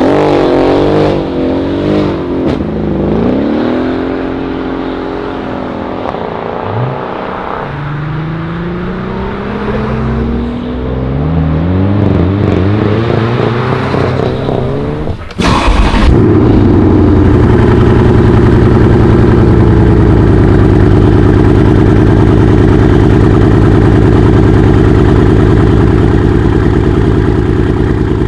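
RENNtech-tuned Mercedes CLS63 AMG's twin-turbo V8 revving during a burnout, its pitch swinging up and down, then climbing in several rising pulls as the car accelerates away. About halfway through there is a sudden loud start-up, after which the engine runs at a steady, loud cold-start idle.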